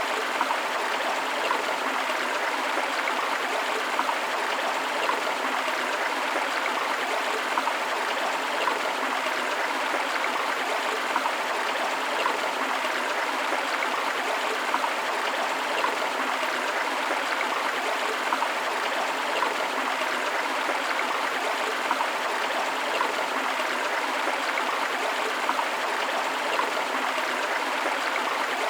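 River water flowing steadily: an unbroken rushing with little deep rumble.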